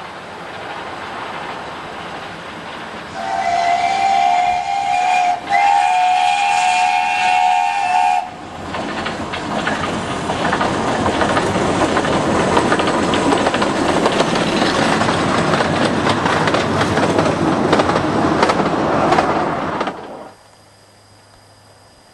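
Narrow-gauge steam locomotive 'Fox' approaching, then sounding its whistle in two blasts, a short one about three seconds in and a longer one ending about eight seconds in. It then passes close with a loud running clatter of wheels and exhaust, which cuts off suddenly near the end.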